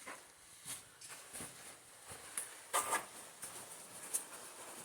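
Faint scattered clicks and scuffs, with one louder scrape about three seconds in.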